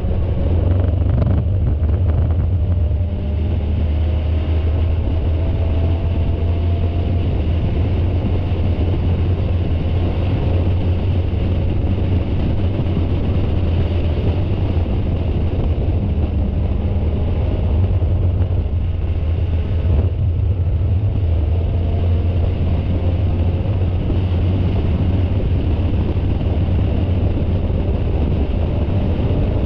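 Spec Miata race car's four-cylinder engine running hard at speed, heard onboard as a loud, steady, heavy low rumble; its pitch creeps slowly upward twice as the car gains speed.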